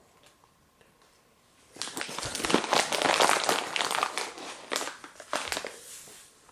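Crinkling and rustling of a plastic cat-treat bag, starting about two seconds in as a dense run of crackles and tapering off near the end.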